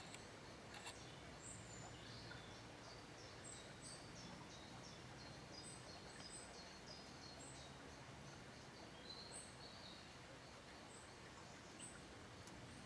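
Faint outdoor ambience with birds chirping in the background: short, high notes repeating every second or so over a low, steady hum.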